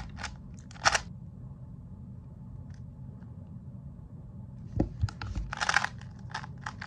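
A 2x2 speed cube being turned fast in the hands: clusters of dry plastic clicks in the first second, then a thump about five seconds in and dense clicking through the end, over a steady low hum.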